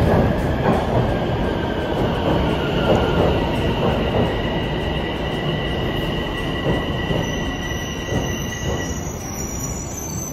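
Toronto Rocket subway train pulling into the station and slowing to a stop: a steady rumble of wheels on the rails with a high-pitched squeal that dies away about nine seconds in. A higher thin whine joins near the end as the train comes to rest.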